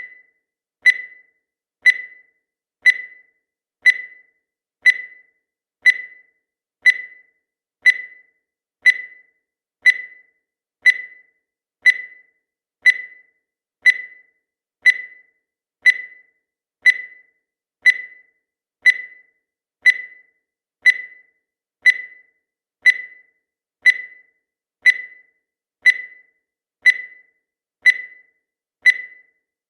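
Countdown timer's electronic beep: a short, high-pitched tone once every second, each one fading quickly.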